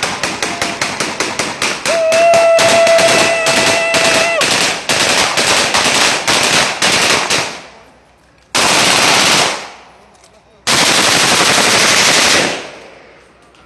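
Automatic gunfire: a long run of rapid shots, about five a second, for the first seven or so seconds, then two sustained bursts, one of about a second and one of about two seconds. A steady high held tone sounds over the shots for about two seconds near the start.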